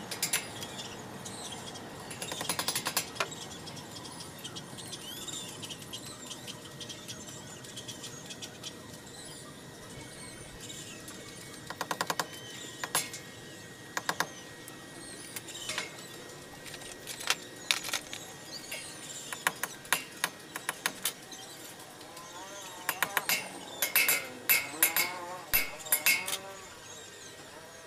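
Hand tool tapping on a steel tubular railing: short runs of sharp metallic knocks, sparse at first and coming thick and fast near the end.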